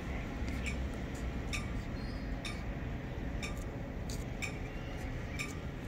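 Light, sharp clicks about once a second over a steady low rumble.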